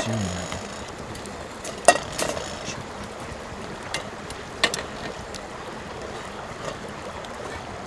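Wood fire crackling: a few sharp pops, the loudest about two seconds in and another near five seconds, over a steady hiss.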